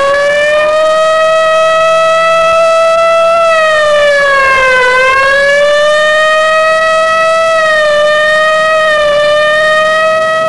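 Police emergency car's siren wailing on an emergency run: a loud, steady high wail that dips in pitch and climbs back about halfway through.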